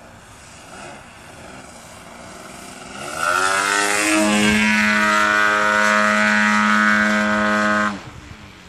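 Piped ZDZ 90 two-stroke gas engine of a 103-inch Extra 330 model plane, spinning a Falcon 28x9.5 propeller. It is faint at first, revs up about three seconds in, and holds a loud, steady note as the plane passes overhead. The note drops off abruptly near the end.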